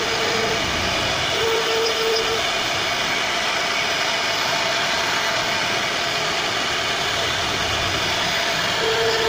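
CNC router spindle running while its small bit carves a relief pattern into a solid wood panel: a steady machine whine over the hiss of cutting. A lower hum comes and goes twice in the first couple of seconds and returns near the end.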